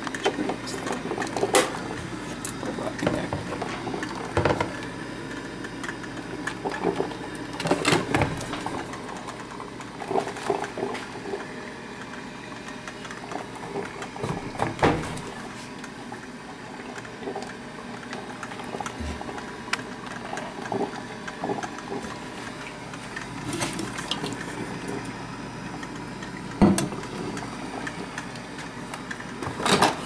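Black & Decker TCM411 thermal-carafe drip coffee maker brewing, with a steady bubbling from the machine. A few sharp knocks break in now and then.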